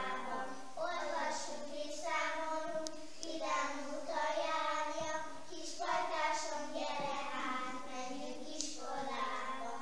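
Young children singing a song unaccompanied, in short phrases with brief breaks between them.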